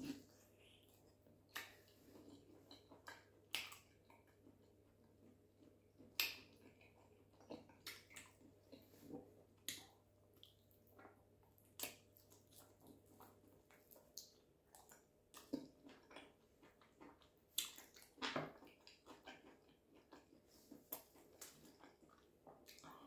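Close-miked mouth sounds of a person eating sauce-coated chicken: bites, chewing and wet lip smacks that come as short, sharp clicks at irregular intervals.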